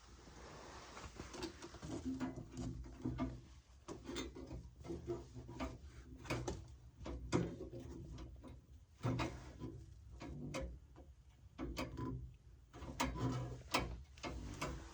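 Irregular wooden clicks, knocks and rubbing from handling an antique Singer treadle sewing machine and its wooden cabinet, with short low creaks between the knocks.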